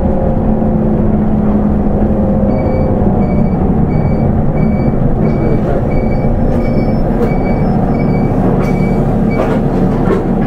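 Nissan Diesel Space Runner RA city bus heard from inside while it runs, a loud steady engine and road drone. A high electronic beep repeats about every two-thirds of a second from a couple of seconds in until near the end, and a few sharp clicks come at the very end.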